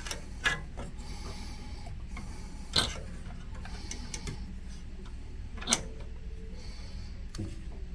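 Sharp clicks and taps of small parts being handled on a pinball machine, three louder ones about half a second, near three and near six seconds in, with fainter ticks between, over a steady low hum.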